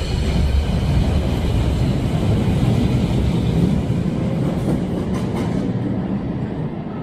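Brussels Metro train pulling out of an underground station, its rumble and wheel noise on the rails building as it gathers speed past the platform, then easing off as it draws away.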